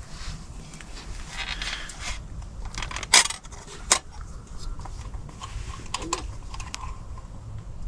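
Rustling of camp gear being handled, with light metal clatter and two sharp clinks about three and four seconds in, like camp cookware and cutlery being put away.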